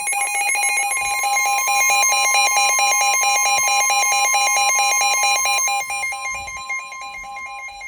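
Emergency alert attention signal from a weather alert radio: a loud, harsh, steady two-tone alarm with a fast pulsing rattle. The higher tone joins about a second in. It marks the start of a severe thunderstorm warning broadcast.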